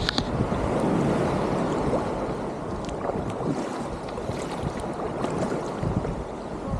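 Water sloshing and splashing around a kayak out on the sea, with small waves and wind buffeting the microphone.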